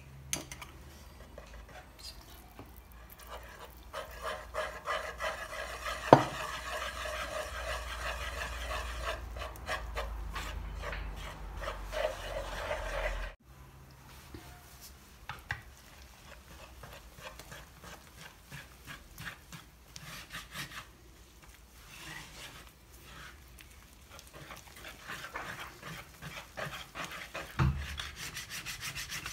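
Wire whisk beating a thick flour-and-egg batter in a bowl: fast, rhythmic scraping and slapping strokes. A sharp knock about six seconds in is the loudest sound. The whisking stops abruptly about halfway, then goes on more softly, with a dull thump near the end.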